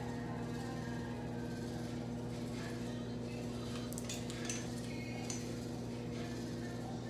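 Steady low electrical hum, with a few light clicks about four to five seconds in as the hair flat iron is opened and re-gripped.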